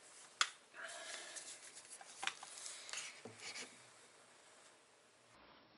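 Handling noise from a Henry pump-action .22 rifle being picked up off crumpled packing paper: a light click, then a few seconds of rubbing with small knocks.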